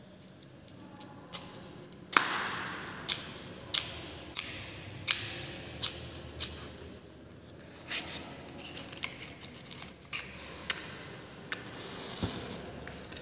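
A string of sharp clicks, about one or two a second, from small objects being handled by hand, with a brief rush of noise about two seconds in and another near the end.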